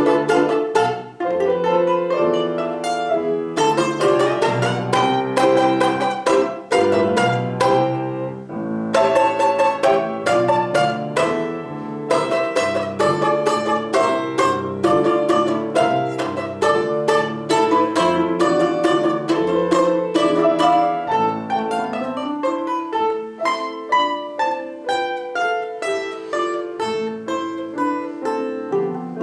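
Music played on plucked string instruments: a quick melody of sharply struck, decaying notes over a lower accompaniment, with a stretch of rapid repeated notes around the middle.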